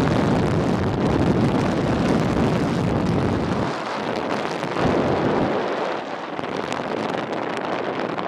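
Wind buffeting the microphone on a moving two-wheeler: a loud, even rushing roar with a heavy low rumble that eases about four seconds in, then smaller gusts.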